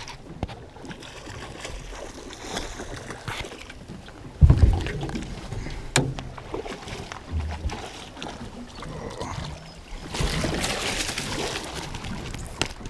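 A heavy thump against the boat about four and a half seconds in, then a flathead splashing at the surface as it is scooped into a landing net near the end.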